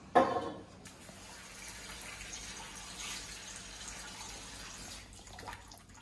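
Kitchen tap running cold water into a pot holding a whole chicken: a steady hiss of filling water that starts about a second in and shuts off near the end. A short knock comes right at the start.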